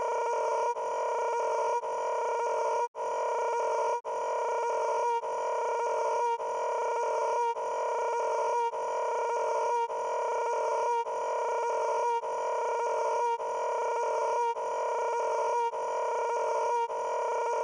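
A steady buzzing pitched tone that repeats in a loop, cutting out briefly about once a second, with one longer dropout about three seconds in.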